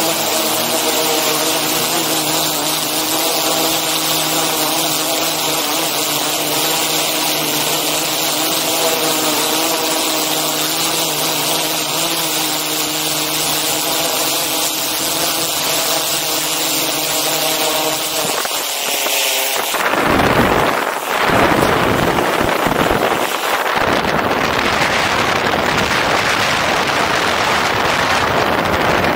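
DJI Inspire 2 quadcopter's rotors running with a steady multi-toned hum, heard from the camera slung on the drone. About two-thirds of the way through, the hum gives way suddenly to loud wind noise rushing over the microphone, gusting in the low end.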